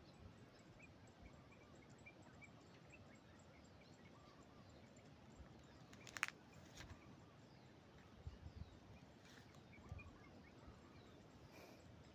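Faint outdoor ambience with small, repeated high chirps, one sharp click about six seconds in, and a few soft low thumps later on.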